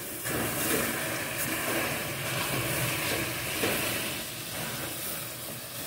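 Seasoned chicken pieces sizzling in a pot over a gas burner as they are stirred with a spatula, a steady hiss with soft scraping and shuffling.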